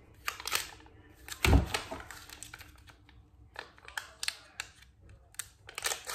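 A small plastic slime container being handled and opened: scattered small clicks and crinkles from the lid and packaging, with one loud knock about a second and a half in.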